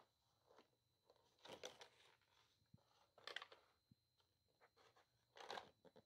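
Faint crinkling and crackling of a clear plastic blister package holding a two-pack of slide dimmer switches as it is handled and turned over, in three main bursts about two seconds apart with small ticks between.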